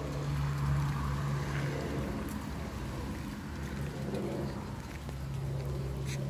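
A motor's steady low hum with a wash of outdoor noise, easing off in the middle and coming back, with a brief click near the end.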